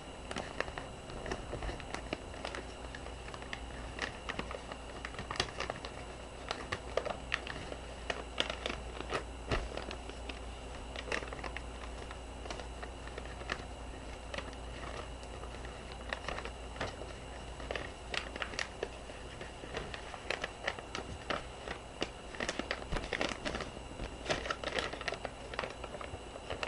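A sheet of paper being folded and creased by hand into a paper airplane: irregular rustling and crinkling with short sharp crackles as the folds are pressed down.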